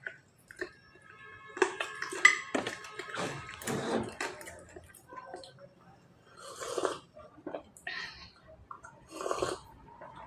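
Kitchen clatter: a series of knocks and clinks of kitchenware, with one piece ringing briefly a couple of seconds in.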